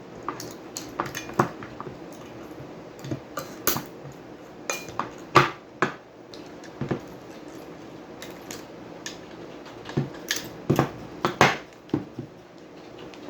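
Irregular metallic clicks and clinks as a PC hard drive is taken apart with a screwdriver, its small metal parts knocking together and on the bench. The loudest knocks come about five seconds in and again a little after eleven seconds.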